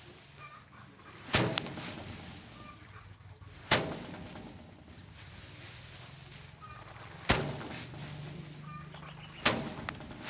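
Four sharp knocks, two to three and a half seconds apart, with faint short chirps between them.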